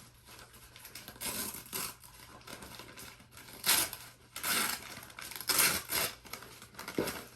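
Plant packaging being unwrapped by hand: irregular short bursts of rustling and tearing, the loudest about four and six seconds in.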